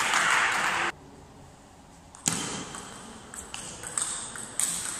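Celluloid/plastic table tennis ball being hit and bouncing in a rally: one sharp hit just over two seconds in, then a quick irregular string of paddle hits and table bounces. Before that, a loud noisy wash cuts off abruptly about a second in.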